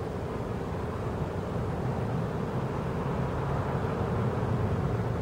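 Steady low rumble of distant vehicle traffic.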